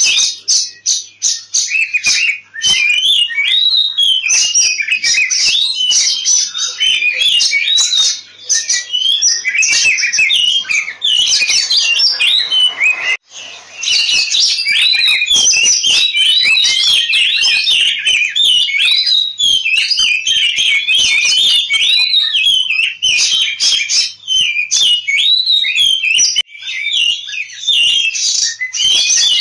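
Oriental magpie-robin singing a fast, nearly unbroken stream of quick rising and falling whistles and chirps, with short breaks about eight and thirteen seconds in. It is the excited 'ngobra' fighting song that keepers play to provoke other magpie-robins into singing.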